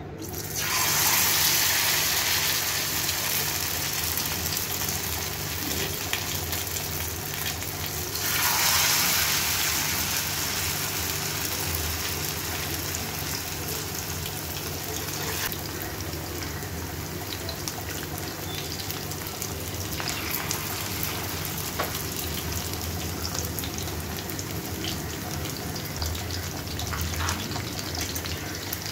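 Flour-coated mutton kababs sizzling in shallow oil in a frying pan. A loud burst of sizzle as the first kabab goes into the hot oil about half a second in and another as a second is added about eight seconds in, then a steady frying sizzle.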